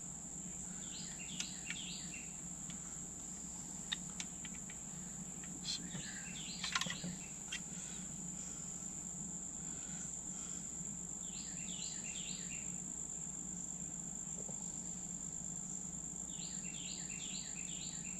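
A steady, high-pitched chorus of insects droning throughout. Over it a bird calls four times, each call a short run of quick chirps, and there are a few faint clicks.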